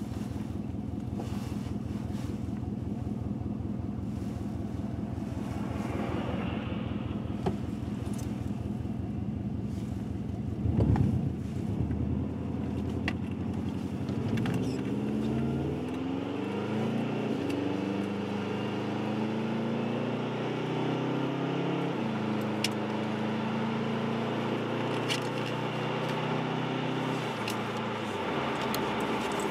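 A 2004 Subaru WRX's turbocharged flat-four runs while the car drives. Past the halfway point its note climbs steadily as the car accelerates, drops at a gear change, and then holds steady. There is a single louder thump about a third of the way in.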